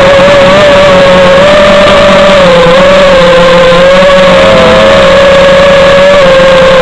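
FPV aircraft's electric motors and propellers buzzing loudly in flight, the pitch wavering slightly as the throttle changes, recorded close up and distorted.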